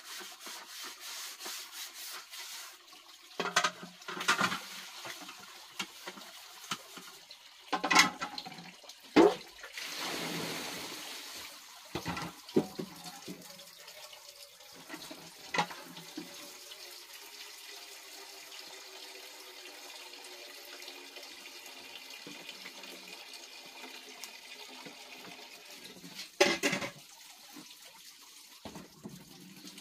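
Split wood and bamboo sticks knocking and cracking as they are laid on a small wood fire and shifted about, with a few sharp cracks and a short stretch of rushing noise.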